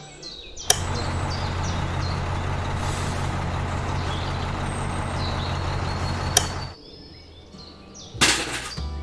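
A small motor runs with a steady low hum and a noisy whirr for about six seconds. It starts with a sharp click and cuts off with another click. A short burst of noise follows near the end.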